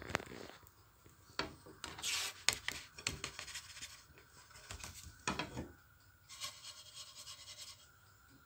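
Scraping, rubbing and a few light knocks as a cooked semolina baghrir is lifted off a non-stick frying pan and laid on a paper-towel-lined plate.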